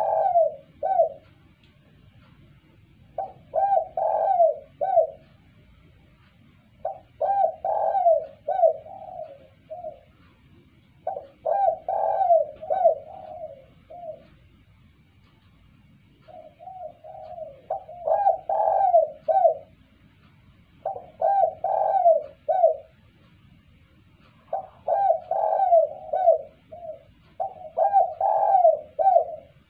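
Spotted dove cooing: phrases of several hooting notes, each phrase lasting one and a half to three seconds and repeated about every three to four seconds, some eight phrases in all.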